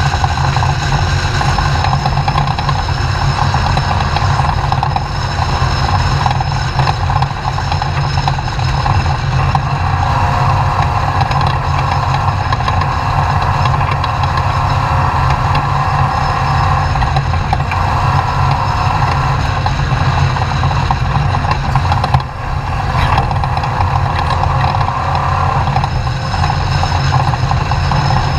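Off-road race truck's engine running steadily and loudly, with one brief dip in level about three-quarters of the way through.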